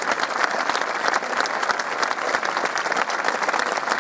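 A large crowd applauding: dense, steady clapping.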